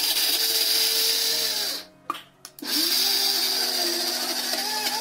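Electric mixer grinder (mixie) grinding boiled jackfruit seeds into powder. The motor runs, is switched off just before two seconds in with a couple of short blips, then is switched back on about half a second later and runs again.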